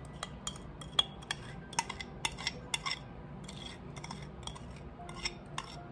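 A metal spoon scraping a sticky honey-and-molasses mixture out of a glass bowl, clinking against the glass in a run of irregular sharp clicks.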